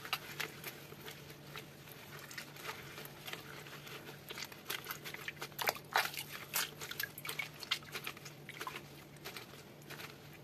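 Wet squelching and slapping of hot, stretchy kashkaval cheese curd being kneaded and folded in rubber-gloved hands over a pot of hot whey, in irregular squishes and drips, busiest around the middle. A faint steady low hum runs underneath.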